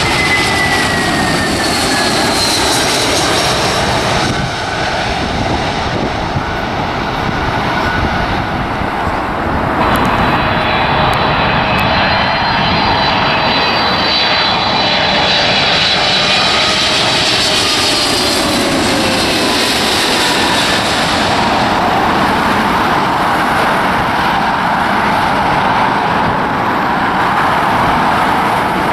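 Jet airliners on final approach passing low overhead: a steady engine roar with high whining tones that slide down in pitch as each one passes. First an Airbus A321, then, about ten seconds in, a larger twin-engined Boeing 777 whose whine falls away more slowly.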